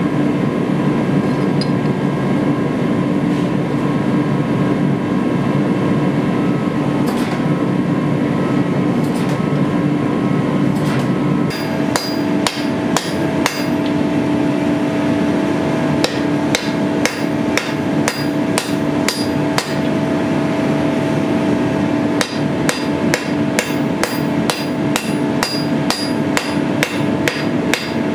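A forge running with a steady hum for the first dozen seconds. Then a hand hammer strikes a red-hot steel sword blade on an anvil in runs of sharp, ringing blows, about two to three a second, while the hum carries on beneath.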